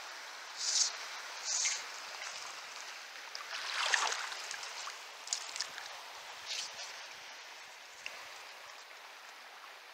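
Flowing river water, with a small brown trout splashing at the surface about four seconds in as it is reeled in. Two short hissing bursts come in the first two seconds, and a few faint clicks follow the splash.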